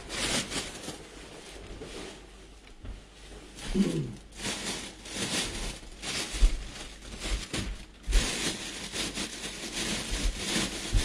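Irregular rustling and crinkling handling noises, with a short voice sound about four seconds in.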